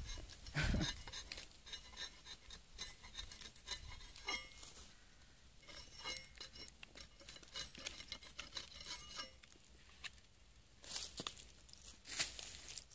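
Rubber-tapping knife shaving a thin strip of bark along a rubber tree's tapping cut, a run of small crisp ticks and scrapes as the blade is drawn along. This is the opening of a new tapping panel. A couple of louder scuffs come near the end.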